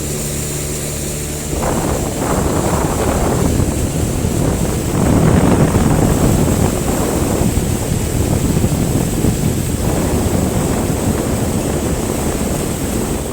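Motorboat under way: a steady engine hum at first, then from about a second and a half in a loud rush of wind on the microphone and water against the hull as the boat picks up speed.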